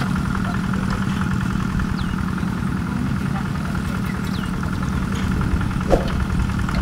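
Honda GP160 single-cylinder four-stroke engine driving a water pump, running steadily at idle. A short knock sounds about six seconds in.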